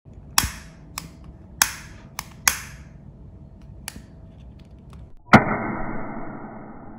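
Gas lighter's igniter clicking about six times, then catching with a sharp snap a little over five seconds in, followed by the steady hiss of its flame.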